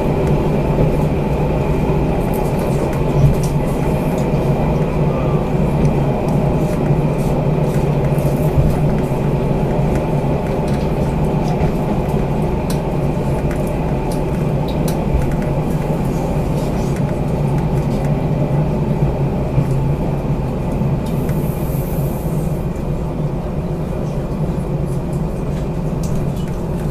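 Cabin noise inside a DR2800 diesel multiple unit: a steady low diesel engine hum with running noise from the train.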